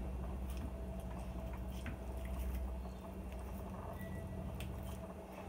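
Faint wet squishing and small scattered clicks of a knife and fingers working raw chicken thigh and drumstick meat away from the bone, over a steady low hum.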